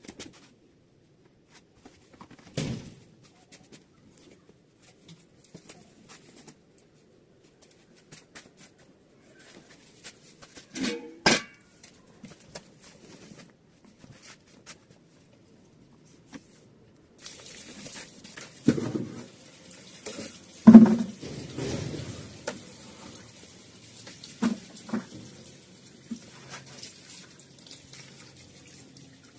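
A few scattered knocks, then a water tap turned on about halfway through and left running in a sink, with louder knocks and clatter of things handled under the water.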